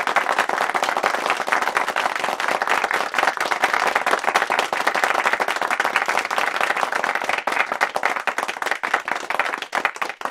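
Audience applause: many hands clapping in a dense patter that thins out near the end.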